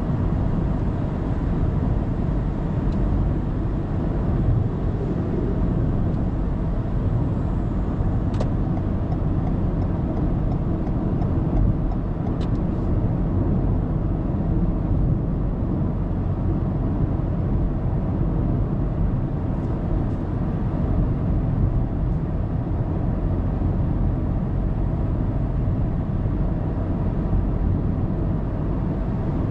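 A car driving at highway speed: steady low rumble of tyres and engine.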